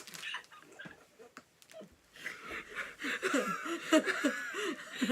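A woman laughing: a quick string of short laughs that starts about two seconds in, after a quiet moment.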